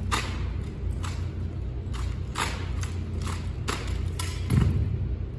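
Drill rifles handled in unison by a squad: about seven sharp, echoing slaps and clacks of hands striking rifle stocks, half a second to a second apart, with a heavier thump about four and a half seconds in. A steady low hum runs underneath.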